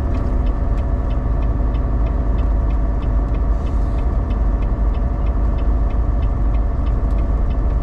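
Heavily loaded semi truck running at highway speed, heard from inside the cab: a steady low engine and road drone, with a faint, fast, regular ticking over it.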